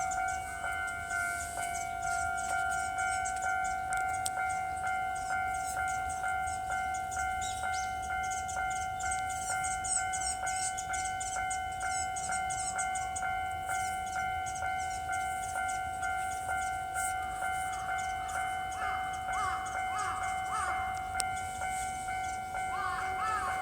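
Japanese railway level-crossing warning bell ringing, a steady two-tone electronic ding repeating evenly without a break, signalling that a train is approaching.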